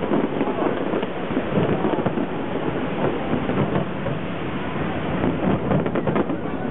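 Distant fireworks over a steady wash of outdoor crowd noise: scattered sharp pops and crackles, with a denser run of pops about six seconds in.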